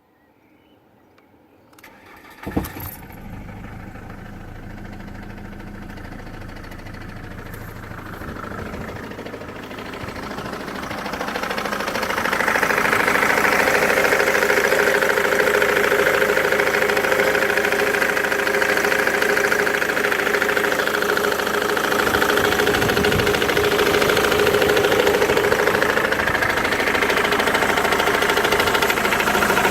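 Ford Mondeo Mk3 2.0 TDCi diesel engine starting with a sharp clack about two seconds in, then running. About twelve seconds in, a loud, steady, horrible noise rises over it, which the owner suspects is a failing crankshaft pulley.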